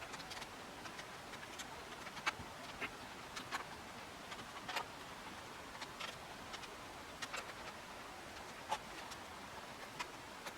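Light, irregular clicks and taps of hand work, such as screws and a metal cover being fitted, over a steady hiss.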